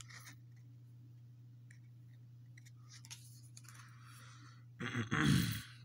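Faint handling of trading cards in the hands: small clicks and a soft rustle of card against card, over a steady low hum. Near the end a brief, louder rush of noise.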